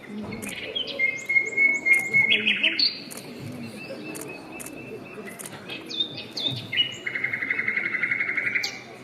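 A recording of birdsong: clear whistled notes, one held about a second in, and a fast even trill near the end.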